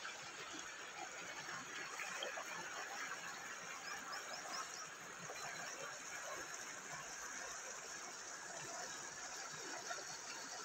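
Shallow river water running over rocks and small rapids: a steady rushing of water.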